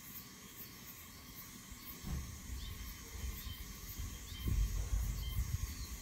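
Outdoor nature ambience with short, high bird chirps now and then. A low rumbling noise comes in about two seconds in and is the loudest sound from there on.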